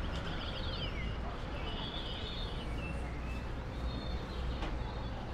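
Small birds chirping in short quick sweeps, a burst in the first second and another about two seconds in, over a steady low rumble of city street noise.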